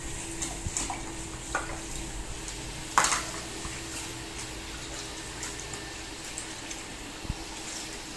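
Running tap water as feeding-bottle parts are rinsed under it, with light clinks and knocks of the parts being handled and one louder knock about three seconds in.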